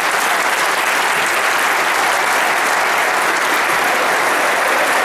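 Large indoor crowd applauding steadily: dense, sustained clapping from a seated audience and people on stage.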